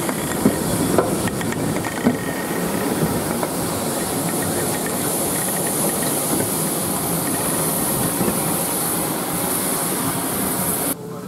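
GWR Castle-class 4-6-0 steam locomotive 5043 Earl of Mount Edgcumbe moving slowly with steam hissing steadily, with a few clanks from its wheels and motion in the first couple of seconds.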